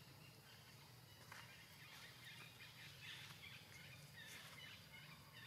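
Faint forest ambience: a string of short, high chirping animal calls begins about a second and a half in, over a low steady hum.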